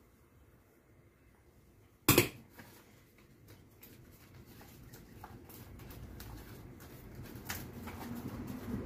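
A plastic spatula knocks once against a stainless steel cooking pot, with a short ring, then the crisp crackle and rustle of a large leaf being folded around rice by hand. A low rumble slowly grows louder toward the end.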